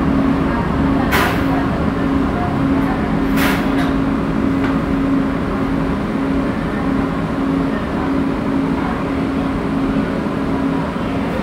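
Metro train heard from inside the car as it slows along a station platform: steady running noise with a constant hum, and two short hisses, about one and three and a half seconds in.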